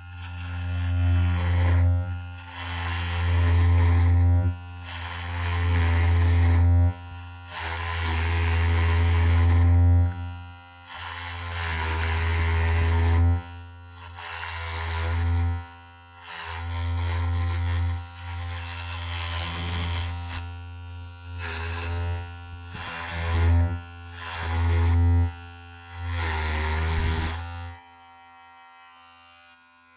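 Electric hair clippers buzzing in repeated passes of one to three seconds, swelling and dropping with each pass, then switching off near the end.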